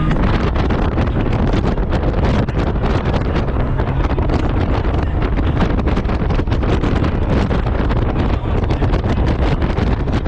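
Heavy wind buffeting the microphone on a moving Honda Gold Wing motorcycle, with the low drone of the bike's engine and road noise underneath.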